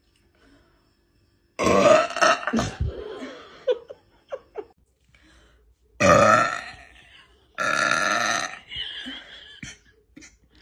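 A young woman burping loudly three times: once about a second and a half in, then twice close together about six seconds in.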